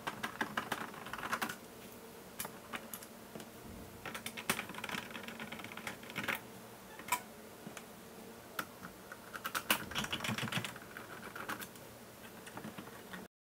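Small screws being worked out of a robot vacuum's plastic chassis with a precision screwdriver: irregular sharp clicks and short scratchy rattles, in three bunches with quieter gaps between.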